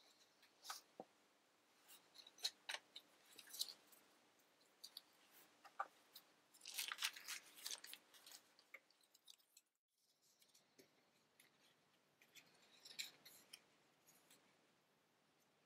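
Faint handling sounds: light rustling of paper and small clicks and taps as hands lay a sheet of printing paper over an inked plate on an etching press bed, with a busier patch of rustling a little past the middle.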